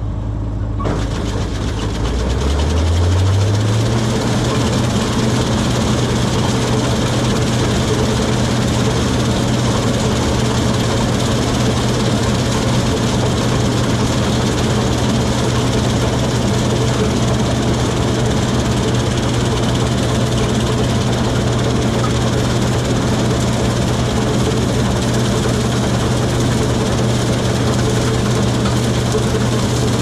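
Heavy diesel engine speeding up over the first few seconds, then running steadily at a constant high speed with a broad mechanical hum.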